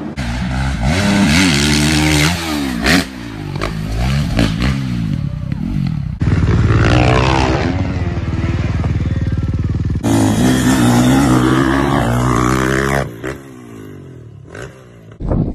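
Dirt bike engines revving and shifting, the pitch rising and falling as throttle is opened and closed, across several short clips that change abruptly. The engine sound drops to a quieter level for a couple of seconds near the end.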